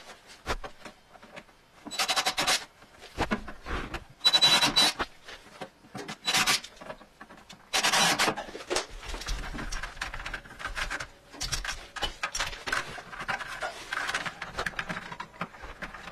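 A cordless power drill run in about five short rasping bursts into the plastic of the hydroponic buckets, then softer rubbing and clicking of plastic parts being handled.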